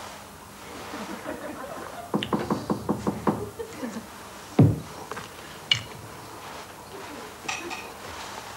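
A quick run of light taps, then a single heavy thud a little before halfway, followed by a couple of small clicks: knocks and handling at a desk.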